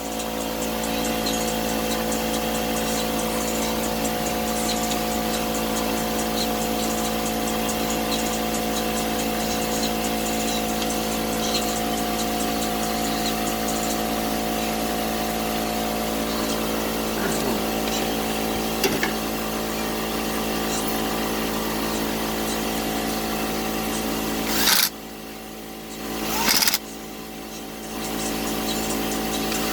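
Air compressor running with a steady hum. About 25 and 27 seconds in, two brief loud bursts are each followed by a drop in the noise, and then the running builds back up.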